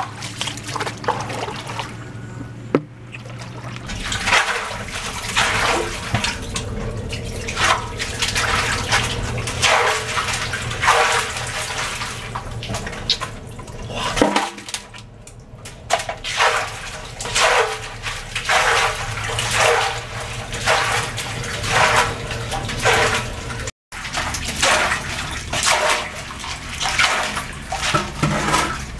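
Shallow muddy water splashing and sloshing in a concrete culvert pipe as it is scooped out by hand and with a bucket, in repeated splashes about once a second.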